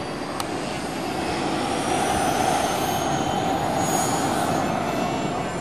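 Electric ducted-fan RC jet (70mm fan driven by an inrunner motor) flying past: a high fan whine that climbs steadily in pitch over a rushing air sound, both growing louder through the middle.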